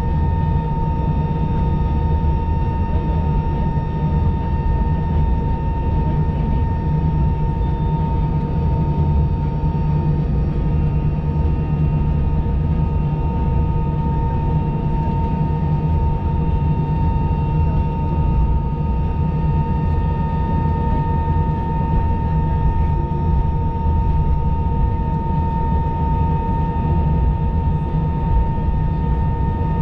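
Cabin noise inside an Airbus A319 taxiing at low power: a steady low rumble from the engines at idle, with a constant high whine.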